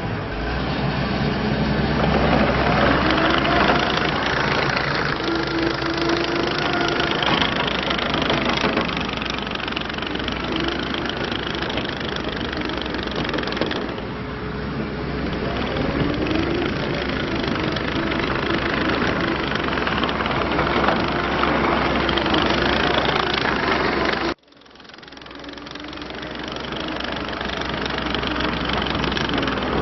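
Kubota SVL90-2 compact track loader's diesel engine running, with a whine that wavers up and down in pitch as the machine works. About three-quarters of the way through the sound cuts out abruptly, then fades back in.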